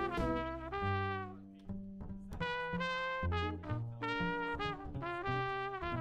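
Jazz trumpet playing phrases of long held notes over upright bass and drums, with cymbals ringing on top.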